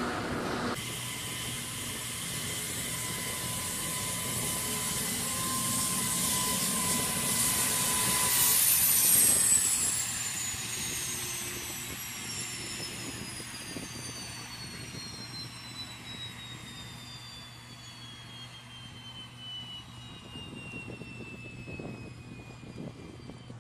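LC-130 Hercules turboprop engines (Allison T56) running, then winding down from about eight seconds in. The turbine whine falls slowly and steadily in pitch as the engines spin down after shutdown.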